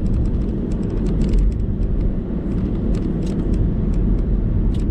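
Steady low rumble of a car heard from inside the cabin, with a few light clicks.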